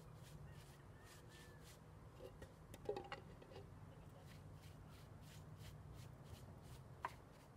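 Near silence: a low steady hum with a few faint knocks and clicks, the loudest about three seconds in and a sharp one near the end.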